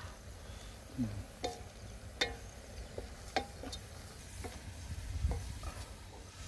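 A spatula stirring in a metal cooking pot set over a wood fire, knocking against the pot with a handful of sharp, irregular clicks.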